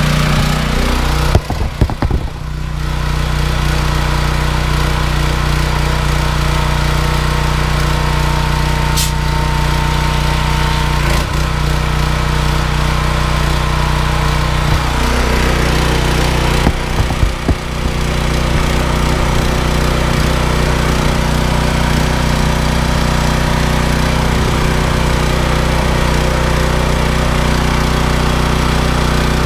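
The 7 hp Loncin petrol engine of an AR 200-12 pressure washer running steadily just after a pull start, choke off. It briefly stutters and dips in loudness about two seconds in and again about seventeen seconds in.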